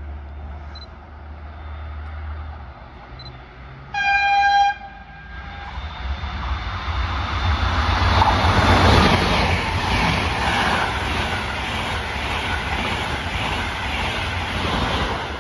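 Passenger train gives one short horn toot about four seconds in, then approaches and runs past with loud rushing wheel-and-rail noise that builds to a peak a few seconds later and carries on.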